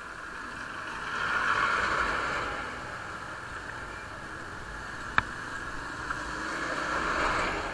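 Road noise from a motorcycle ride on a wet road: tyres hissing on wet tarmac as the bike slows, with passing traffic swelling up twice, the second time as a bus goes by near the end. A single sharp click comes about five seconds in.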